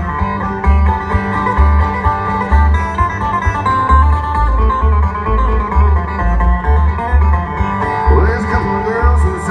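Live bluegrass string band playing an instrumental break on banjo, acoustic guitar, fiddle and upright bass, with the bass holding a steady beat.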